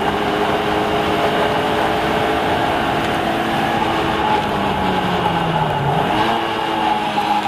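Car engine running on a race track, its note steady at first; about four and a half seconds in the pitch falls for a second or so, then jumps back up sharply about six seconds in.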